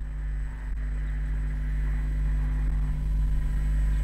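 A low, steady drone with a deep rumble and a few held tones, slowly growing louder.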